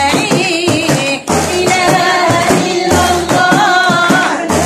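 A woman singing a devotional Arabic song praising the Prophet, accompanying herself with repeated strokes on a hand-held frame drum.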